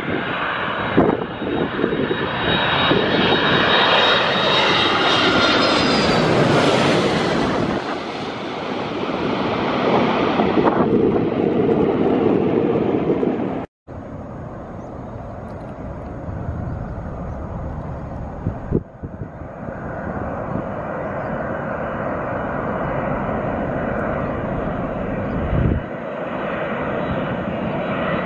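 Boeing 767 twin-engine jet airliner on final approach, flying low overhead: loud jet engine noise with a high whine that falls in pitch as it passes. After a sudden cut, another 767 is heard approaching from a distance, its engine noise steady and growing louder near the end.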